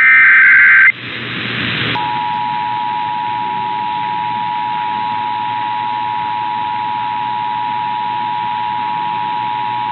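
Emergency Alert System test signals: a brief screechy digital data burst (the SAME header) lasts about a second, then a steady hiss. About two seconds in, the two-tone EAS attention signal starts and holds steady as a dissonant, unbroken dual-tone alarm.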